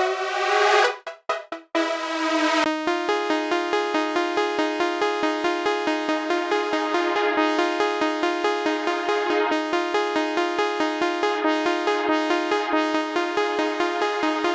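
Synthesizer chords pulsing about five times a second, their brightness opening and closing as the filter cutoff is automated. The first two seconds are short, choppy bursts of a brighter chord.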